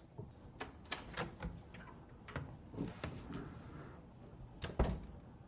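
Faint, scattered clicks and light knocks, with one louder knock about five seconds in.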